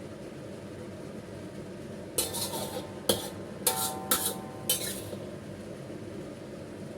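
A metal utensil clanking and scraping against cookware, about five strikes with a short metallic ring between about two and five seconds in, over a steady low hum.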